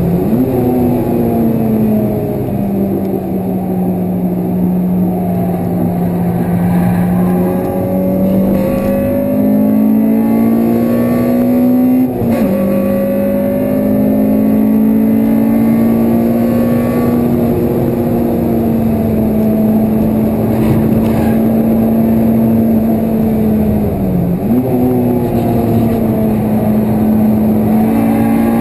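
Honda Civic Type R's four-cylinder engine at high revs on track, heard from inside the cabin. The pitch falls and climbs through corners and straights, drops abruptly about twelve seconds in at a gear change, and dips briefly near the end.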